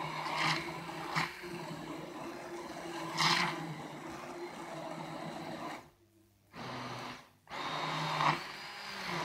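Hand-held immersion blender running in a plastic cup, puréeing sprouted lentils in water. The steady motor hum has a few louder surges, and it cuts out briefly twice, about six and seven and a half seconds in.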